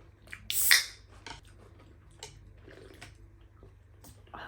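Eating at a table: a short, loud noisy burst about half a second in, followed by light clicks and taps of utensils against dishes.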